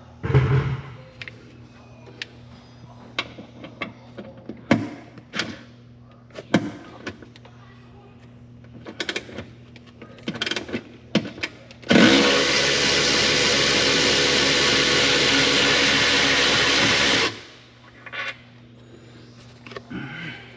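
Scattered clinks and knocks of hand tools on metal bolts, then about twelve seconds in a power tool runs steadily for about five seconds and stops sharply, backing out the intake manifold's bolts.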